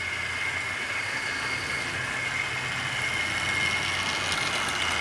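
Tri-ang/Hornby OO gauge model of an L1 4-4-0 locomotive running on the track, its electric motor giving a steady high whine over the rumble of the wheels on the rails, growing louder as the train draws near. A few sharp clicks come near the end as it passes close.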